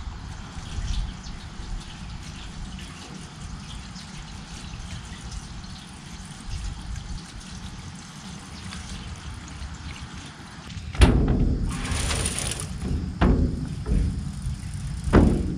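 Hot water with cleaner-degreaser poured steadily from a bucket through a funnel into a steel fuel tank. About eleven seconds in, a louder burst of noise and a couple of knocks as the tank is handled.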